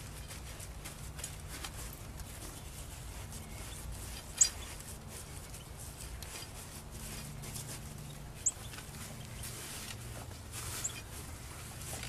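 Faint rubbing and patting of rubber-gloved hands on wet, cement-soaked cloth, over a steady low hum. Three short high bird chirps cut through, the loudest about four seconds in, the others near eight and eleven seconds.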